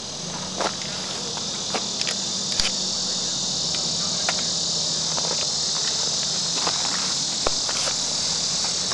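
Steady high-pitched chorus of insects, with a few faint clicks and knocks scattered through it.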